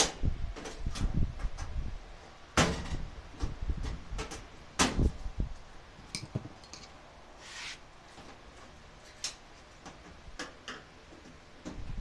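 Handling noise: cloth rubbing and rustling on a handheld phone's microphone, with scattered clicks and knocks, the sharpest about 2.5 and 5 seconds in, then quieter.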